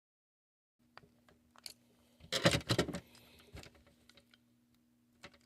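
Small metal motor parts of a Lionel Pullmor motor being handled and turned over by hand: a few sharp clicks and a short rattling scrape about halfway through, over a faint steady hum.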